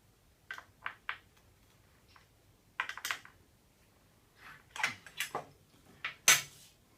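Small metal parts clicking and clattering as they are handled: screws, nuts and aluminium fence pieces knocking against each other and the bench, in irregular knocks with the loudest clack near the end.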